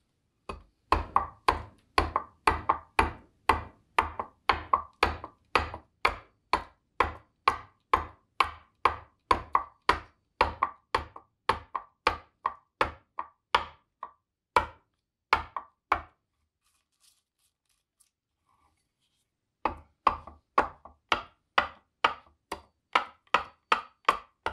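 Bowl adze chopping into green black walnut in short, repeated strokes, about two a second. The strokes pause for about four seconds two-thirds of the way through, then resume.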